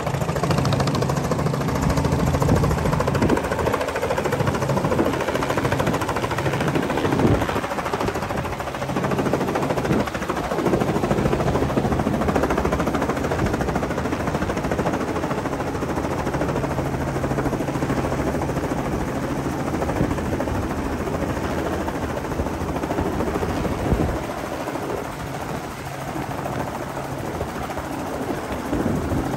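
Robinson R44 helicopter approaching, hovering and setting down, its main rotor beating in a steady rapid chop over the running piston engine. The sound drops a little near the end as it settles onto the deck.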